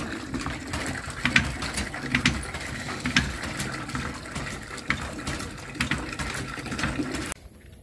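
A hand pump being worked by its lever, with water gushing from the spout into a metal bucket. A sharp clank comes on each stroke, roughly once a second, and the sound cuts off near the end.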